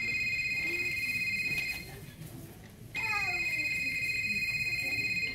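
Telephone ringing twice, a fast trilling high double tone: about two seconds of ringing, a pause of about a second, then a second ring that stops just before it is answered.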